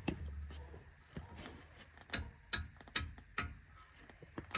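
Hand ratchet being worked on a nut, giving sharp metallic clicks about every half second from about two seconds in.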